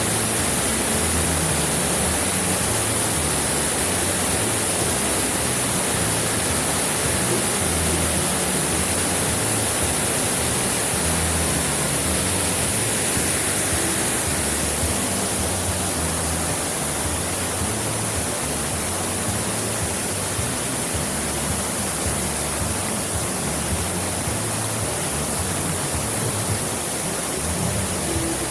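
Waterfall rushing, a steady even roar of falling water with no breaks.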